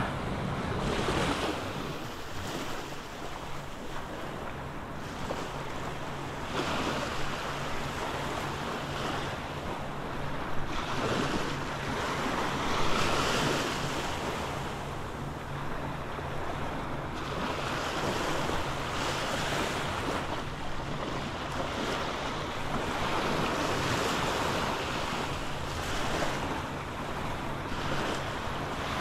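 Small ocean waves breaking and washing up a sandy beach at the water's edge, the wash swelling and fading every few seconds.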